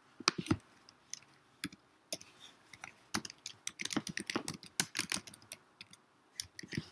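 Typing on a computer keyboard: a run of quick, irregular key clicks, sparse at first and densest in the middle of the stretch.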